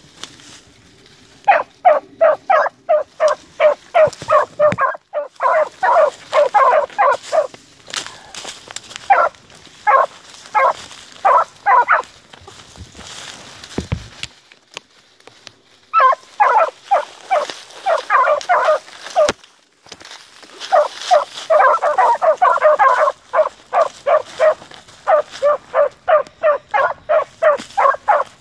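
Two young beagle hounds giving tongue on a rabbit's trail: rapid runs of short, high barks, several a second, with a few seconds' lull about halfway through before the baying picks up again.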